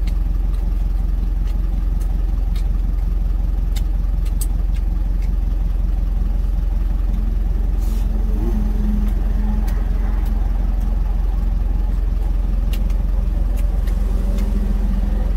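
A truck's engine idling steadily, heard from inside the cab, with scattered light clicks of utensils against a steel food container.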